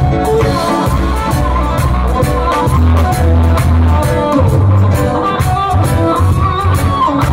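Live reggae band playing, with a heavy bass guitar line, drums, keyboards and electric guitar.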